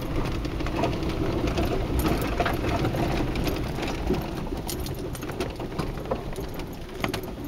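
Truck driving over rough field ground, heard from inside the cab: a steady engine and road rumble with frequent small rattles and knocks as it bumps along.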